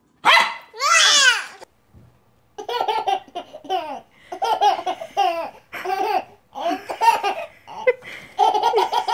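An infant laughing in repeated short, high-pitched bursts, starting about two and a half seconds in. Before it, two loud high-pitched vocal squeals from a toddler.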